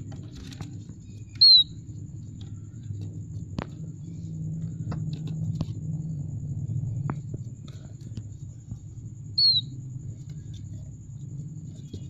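A downy plover chick gives two short, high peeps about eight seconds apart, each dropping slightly in pitch. Under them run a steady low hum and a few faint clicks.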